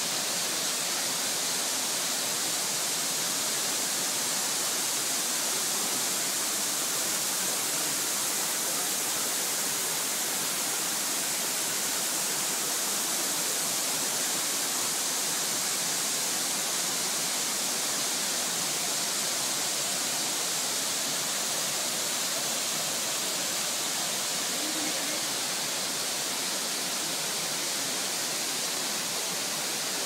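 Nabegataki waterfall pouring into its plunge pool: a steady, even rush of falling water that stays high in pitch and does not change.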